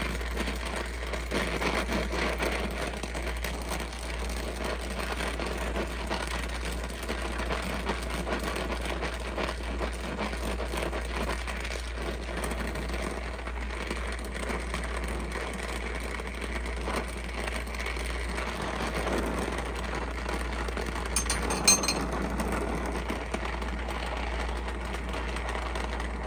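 Gas torch flame hissing steadily while it heats a Mauser rifle bolt handle before bending. A single short sharp click comes about three-quarters of the way through.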